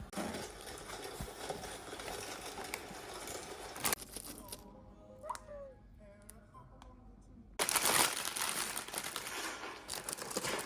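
Packaging crinkling and rustling as it is handled, with a sharp click about four seconds in. It goes quieter for a few seconds in the middle, then a louder spell of crinkling follows near the end.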